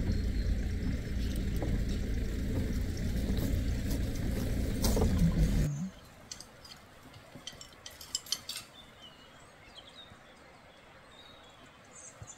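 A steady low rumble that cuts off abruptly about six seconds in. After that it is much quieter, with a quick cluster of sharp clicks and snaps as griffon vultures tear at a carcass, and faint high chirps near the end.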